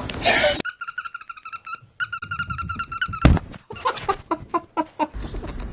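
An animal's high-pitched call: two rapid, pulsing trills of about a second each, then a brief thump and a quick run of short chirps.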